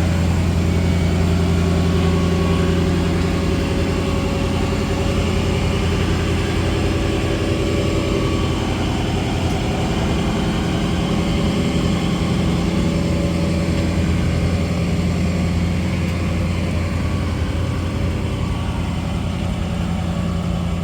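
Rat rod's engine running steadily at low speed, an even, low-pitched exhaust note that holds without revving up or down.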